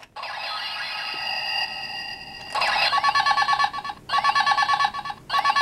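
Electronic sound effects from the speaker of a Henshin Grip Wing Trigger transformation toy set to call mode. A steady electronic tone runs for about two and a half seconds, then a louder warbling ring like a telephone's sounds three times with short breaks.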